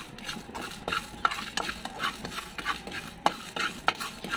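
Whole spices dry-roasting in a non-stick pan, stirred with a plastic spatula: the seeds and dried chillies scrape and click across the pan in a quick, irregular run of short strokes.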